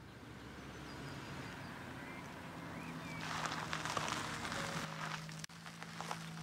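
Hyundai Ioniq's tyres crunching over gravel as the car rolls in slowly and comes to a stop, over a low steady hum, with a few faint bird chirps early on.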